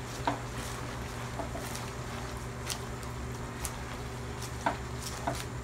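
Water spinach stir-frying in an aluminium wok: faint sizzling and a wooden spatula stirring the leaves, with scattered light clicks against the pan, over a steady low hum.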